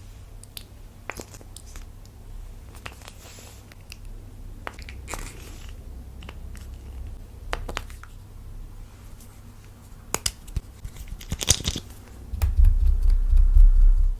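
Clear slime with lipstick worked into it, stretched and pressed by hand, with sticky clicks, pops and tearing crackles. A loud low rumble comes in near the end.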